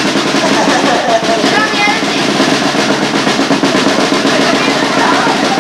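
A fast, continuous drum roll, with voices faintly underneath.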